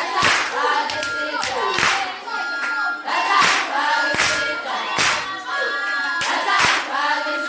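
A group of voices singing together, cut by sharp, uneven beats of clapping and stamping feet for the dancing, about one or two a second.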